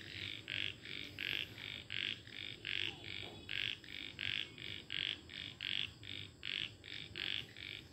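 Night-time animal calls: a steady run of short, even pulses, about three a second.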